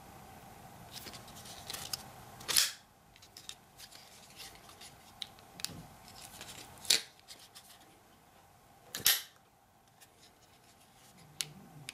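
Cold Steel Talwar XL folding knife's blade being snapped open and shut: three loud, sharp clicks as the blade swings and locks, with fainter clicks of the lock and pivot between them.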